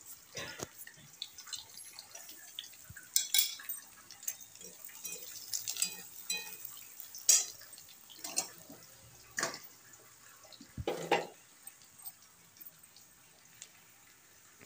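Chopped onion frying in mustard oil in a steel kadhai: irregular sizzling pops and crackles, with a spatula scraping and knocking against the pan now and then.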